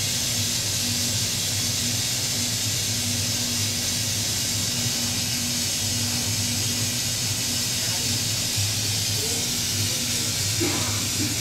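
Glassblower's bench torch burning with a steady hiss as a glass rod is heated in its flame, over a steady low hum.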